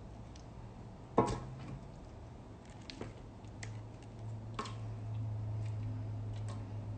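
Raw whole chickens being set into and moved about in a stainless steel roasting pan: a sharp knock about a second in, then scattered light taps and soft wet squishes of the meat. A low steady hum comes in from about four seconds in.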